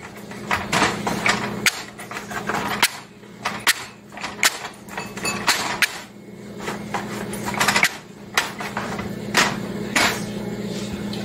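A wooden rolling pin rolling out pie-crust dough on a floured metal sheet, with irregular knocks and clatter as the pin and the sheet bump.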